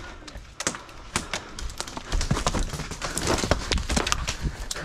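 Irregular sharp clicks and snaps over a rustling noise that grows louder about two seconds in.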